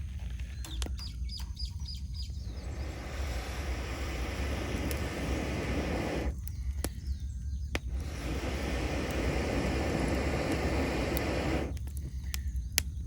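Wood campfire crackling, with scattered sharp pops, over a steady rushing noise that drops away briefly twice. About a second in, a bird calls a quick run of five or six high notes.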